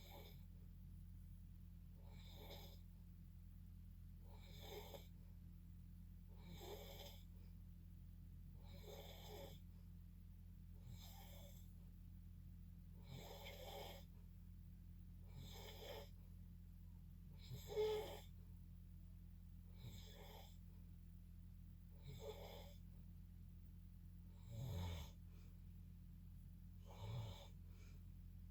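Faint snoring: a sleeper's breaths rasping regularly, about one every two and a half seconds, with one louder snore about two-thirds of the way through. A steady low hum lies underneath.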